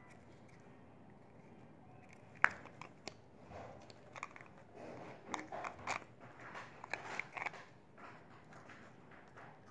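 Plastic Lego bricks clicking and clattering as they are handled and pressed together: one sharp click about two and a half seconds in, then a run of quick clicks and rustles.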